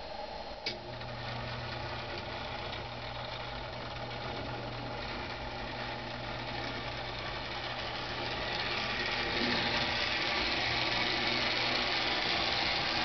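Marx HO model-train motor mechanism in a converted toy streetcar, running steadily under power along the track with a low hum and mechanical whir. There is a click about a second in as it starts, and the sound grows louder in the second half.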